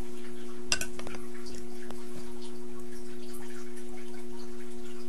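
A steady low two-tone hum, with a brief clatter of sharp clinks from a glass cup about a second in and a few faint ticks after.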